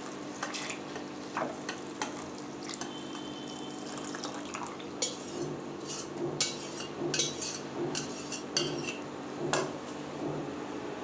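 Milk pouring into a pan of cooked rice while a wire whisk stirs it, the whisk clinking against the ceramic-coated pan, more often in the second half. A steady low hum runs underneath.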